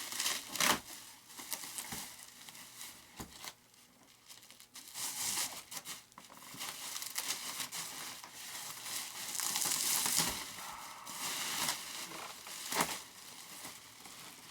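Packaging crinkling and tearing in irregular bursts as a model-aircraft part is unwrapped by hand, with a few sharp clicks and knocks.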